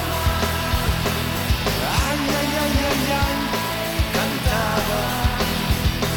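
Live rock band playing: drums keeping a steady beat of about two and a half hits a second under sustained bass and electric guitar lines.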